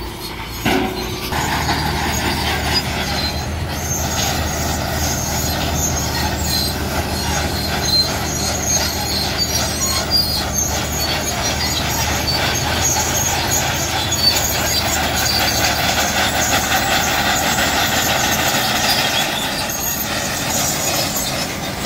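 Heavy road-construction machinery running steadily: a diesel engine drone under a rough, continuous grinding noise.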